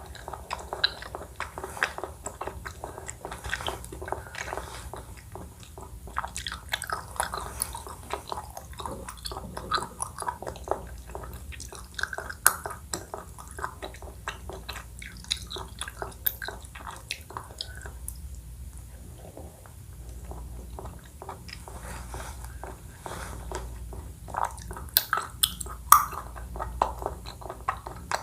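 Close-miked chewing and biting of a Thai coconut-milk dessert, with many short, sharp mouth clicks; a few louder clicks come near the end.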